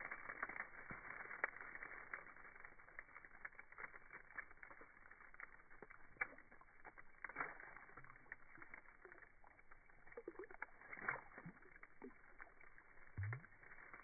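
Faint, slowed-down sound of a fish being released by hand into shallow creek water among dead reeds: dense low crackling and scattered clicks, muffled and dull, with a few drawn-out sliding tones in the later seconds and a short low rising tone near the end.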